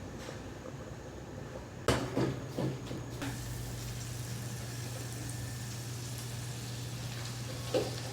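Food cooking on a stove, a steady hiss of boiling or sizzling. A cluster of knocks comes about two seconds in and one more knock near the end. A low steady hum starts with the first knock.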